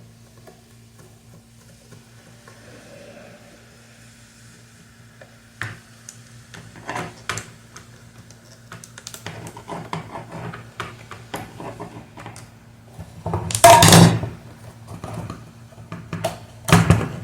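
Metal parts and tools of an electric fan's motor being handled: scattered clicks and clinks from about a third of the way in, with a louder clattering knock about two-thirds through and another near the end, over a steady low hum.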